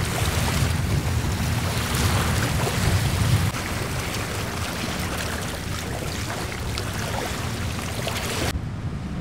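Wind buffeting the microphone over water lapping at a lake shore, a steady rushing noise with a heavy low rumble that eases a few seconds in. The hiss cuts off abruptly near the end, leaving a quieter rumble.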